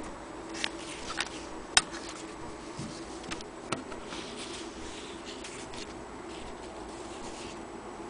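Handling noises at an antique Willcox & Gibbs sewing machine, with the machine not running: a few sharp metallic clicks and taps in the first four seconds, the loudest about two seconds in, then soft rustling of denim fabric being handled. A steady low hum runs underneath.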